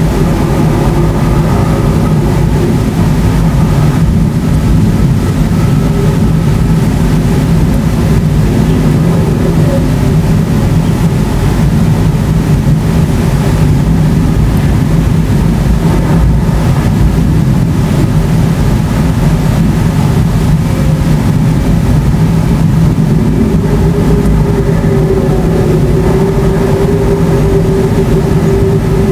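Continuous deep rumbling of distant thunder from a supercell thunderstorm, steady and unbroken with no distinct claps.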